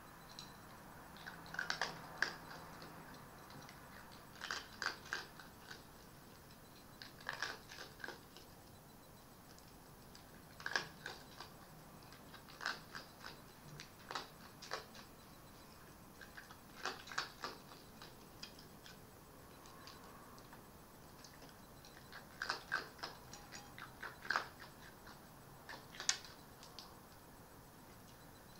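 Red fox eating from a bowl: short bursts of sharp crunching and clicking bites, a cluster every two to three seconds.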